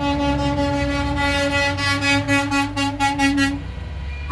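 Semi truck's air horn blowing one long, loud blast that cuts off about three and a half seconds in, over the low rumble of the truck's diesel engine.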